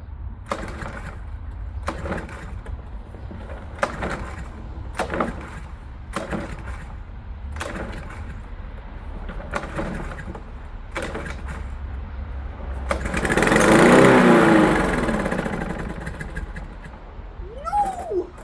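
Petrol lawn mower being cranked with a series of short sharp sounds about every second or two. About thirteen seconds in the engine catches, revs up loudly, then winds down and dies within a few seconds, a stall the owner puts down to the wet and a nearly dry fuel tank.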